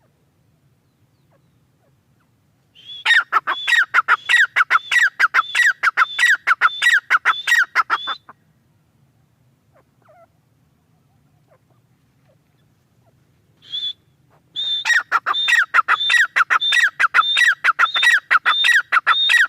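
Grey francolin (teetar) calling: two long runs of rapid, evenly repeated, shrill notes, each note dropping in pitch, separated by a pause of several seconds with one short note before the second run.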